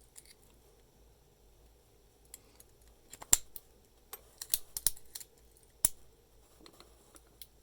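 Sharp metallic clicks of a brass key being worked in a US registered postal padlock, handled by hand. There is one loud click about three seconds in, a quick run of clicks around four and a half to five seconds, another near six seconds, and a few faint ticks between them.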